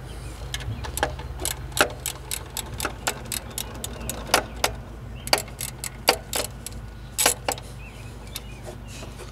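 Ratchet wrench clicking in short strokes: irregular sharp clicks, a few a second, stopping about three-quarters of the way through. It is turning the 15 mm bolt of a Jeep 4.0L's manual belt tensioner to slacken the serpentine belt.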